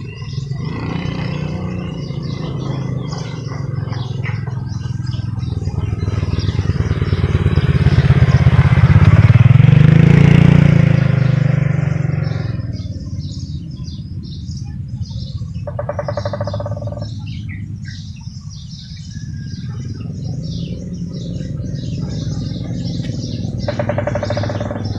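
A vehicle engine humming close by, swelling to its loudest about ten seconds in as it passes and then fading, with birds chirping throughout.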